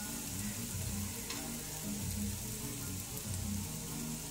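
Chopped vegetables sizzling in a frying pan, a steady soft hiss, with a faint low pulsing beat underneath.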